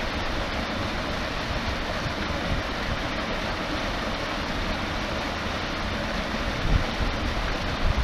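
Small waterfall on a woodland stream pouring over rocks: a steady rush and splash of falling water.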